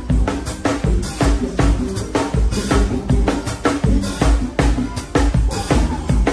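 Live band music in a forró style, the drum kit playing a steady driving beat: bass drum kicks about twice a second with snare and cymbal strokes over sustained bass notes.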